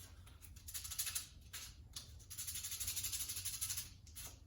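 Fine sandpaper rubbed by hand over a small washer, heard as a few short scratchy sanding strokes and one longer stretch of sanding in the middle.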